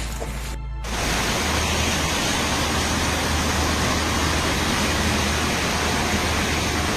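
Heavy rain pouring down in a steady hiss. It drops out briefly just under a second in, then comes back louder.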